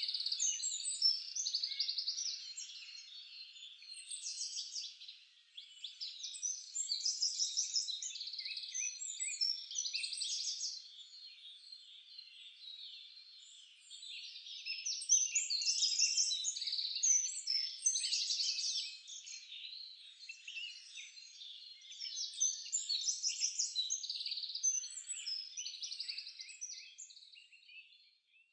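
Small songbirds singing: a chorus of high chirps and rapid trills that swell and fade in phrases of a few seconds.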